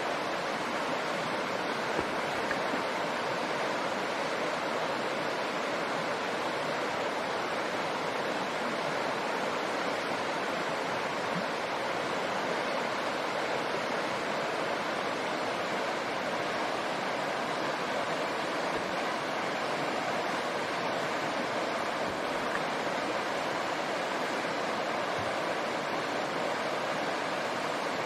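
Shallow river rushing over rocks: a steady, unbroken rush of water.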